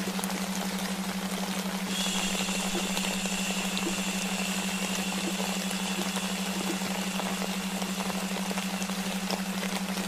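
Sleep soundscape of rain-like white noise, an even hiss with scattered small ticks, over a steady low delta-wave hum. Faint high thin tones come in about two seconds in.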